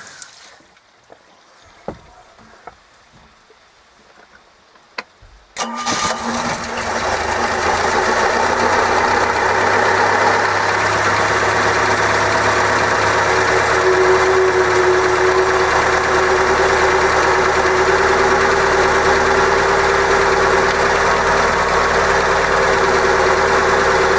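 A few light clicks, then about five seconds in an OMC 140 stern-drive four-cylinder engine starts and settles into a steady idle. This is its first start after an oil change, and it got oil pressure quickly.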